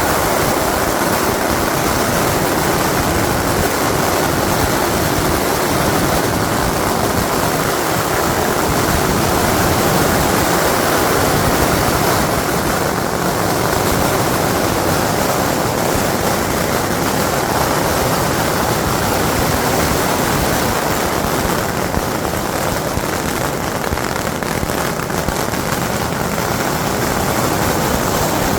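Long strings of firecrackers going off in one continuous, dense crackle with no pause.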